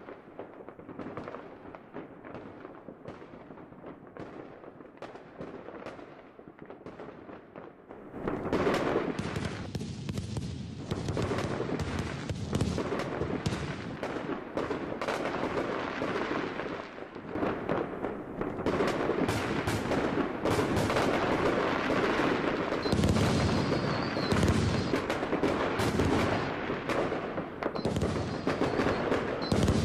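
Fireworks display: a continuous barrage of bangs and crackles, fainter at first, then much louder and denser from about eight seconds in, with deeper booms near the end.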